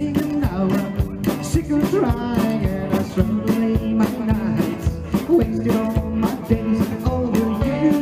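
Live rock 'n' roll band playing over a PA: electric guitars, upright bass, saxophone and drums keeping a steady beat, with a pitched lead line that bends and wavers.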